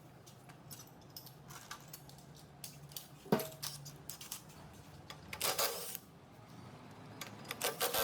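Metal tools and parts being handled during a compressor repair: scattered light clicks, a sharp clank about three seconds in, and two short spells of metallic rattling, around five and a half seconds and near the end.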